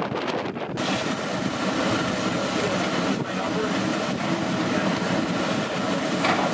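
Wind over rough sea at first, then, from just under a second in, a steady drone of shipboard machinery with a few steady hum tones running through it.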